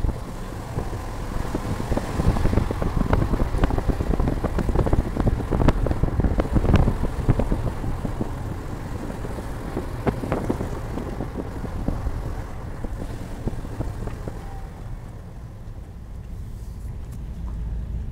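Wind buffeting the microphone of a moving car, over the low rumble of the car on the road. The crackling gusts are strongest in the first half and ease off after about ten seconds.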